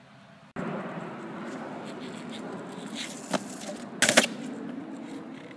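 Longboard wheels rolling on asphalt, a steady rumbling hiss that starts suddenly about half a second in. It carries a couple of sharp clacks around three seconds in and a loud clatter of hard knocks about four seconds in.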